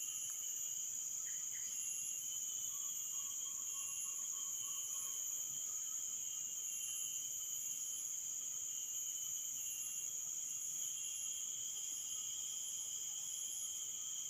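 Chorus of insects such as crickets: a steady high-pitched drone, with other insects calling in short, evenly repeated pulses.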